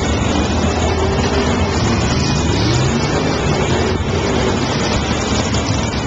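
Race car engines running at speed, loud and continuous, with the pitch of one engine climbing about two seconds in as it accelerates.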